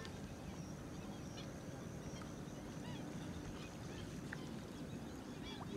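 Faint outdoor ambience: scattered short bird calls over a steady low background noise, with a thin steady high-pitched tone.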